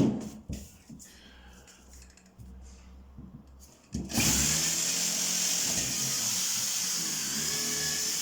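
A few knocks and clatter on wood, then about four seconds in a power tool starts and runs steadily with a high, hissing whine.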